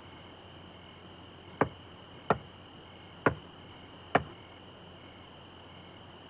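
Four separate knocks on a door, spaced about a second apart, over a steady chorus of chirping crickets.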